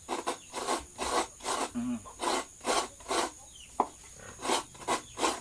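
Coconut meat being scraped against a coconut grater's toothed metal blade, in repeated rasping strokes about two a second.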